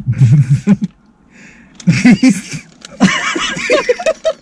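People laughing in three bouts, the last a run of quick, short giggles.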